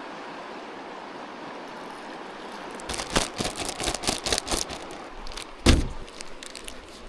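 Steady background hiss, then a quick run of light clicks and knocks for about two seconds and one heavier thump near the end: hands handling gear or utensils.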